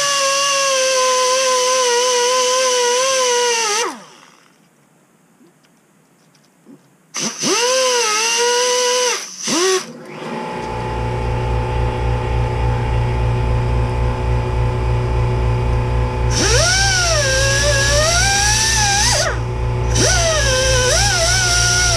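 Pneumatic die grinder with a sanding roll whining in bursts, its pitch sagging as it bites, while it chamfers an engine block's oil galley. About halfway through, background music with a steady beat comes in under it, and the grinder keeps running over the music near the end.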